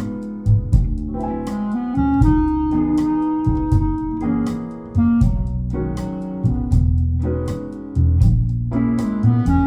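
Instrumental music with no singing: keyboard chords over a bass line, with plucked note attacks, played back on a hi-fi system.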